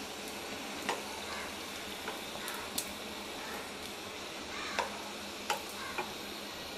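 Batter spirals deep-frying in hot oil, a steady soft sizzle that has died down: the sign that they are cooked and ready to lift out. A perforated slotted spoon clicks against the pan several times as they are lifted out.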